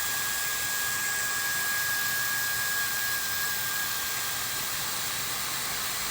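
High-speed hair dryer running steadily: a constant rush of air with a thin, high, steady whine.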